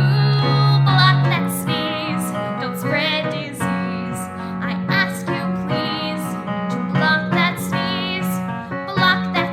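Children's song: a singing voice with vibrato over steady instrumental backing.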